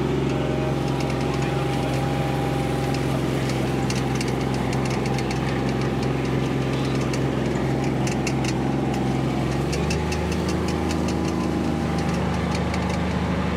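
Utility vehicle's engine running steadily, with light clicking rattles over it; its note changes about ten seconds in as the engine speed drops.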